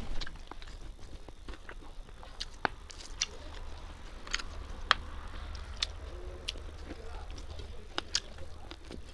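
A bare hand mixing rice with curry on a stainless steel plate: soft squishing with irregular sharp little clicks and taps of fingers against the metal.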